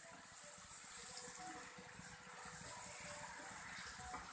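Potatoes frying in oil in a pan on high flame: a steady, high hiss of sizzling with fine crackling.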